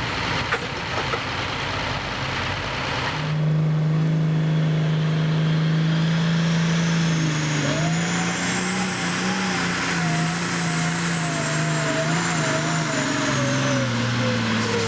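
Diesel pulling tractor at full throttle hauling a weight-transfer sled. Its engine note holds steady, then wavers and sinks toward the end as the sled loads it down, with a high turbo whistle rising over it. For the first three seconds, before it, a John Deere pulling tractor's engine runs in a noisy haze.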